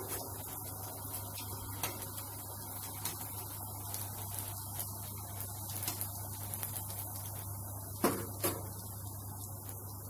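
Golgappa puris sizzling and crackling as they fry in hot oil in a kadhai, with two sharp knocks about half a second apart near the end.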